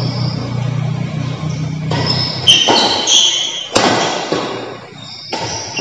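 Badminton play: a steady low hum for the first two seconds, then several sharp racket hits on the shuttlecock between about two and four seconds in. The hits come with short, high squeaks of shoes on the court floor.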